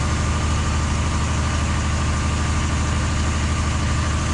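Truck engine idling steadily, a low even hum that holds without change, under a steady rush of noise.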